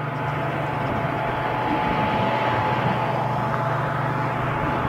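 Steady rumble and hiss of road traffic, with a low hum underneath and a faint high whine for a couple of seconds in the middle.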